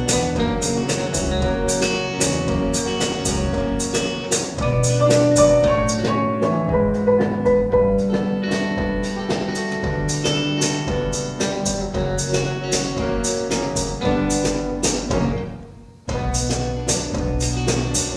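Live band playing an instrumental break with drums keeping a steady beat under sustained bass and keyboard notes. Near the end the music fades away almost to nothing, then the whole band comes back in suddenly.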